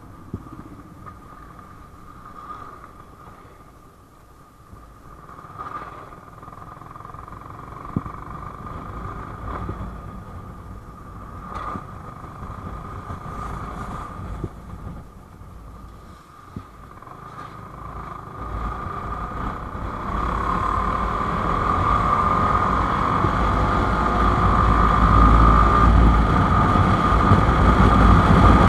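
Yamaha R15 V4's 155 cc single-cylinder engine running under way, heard from a camera on the bike, with a few sharp knocks in the first half. The engine and rushing noise grow steadily louder from about two-thirds through as the bike speeds up.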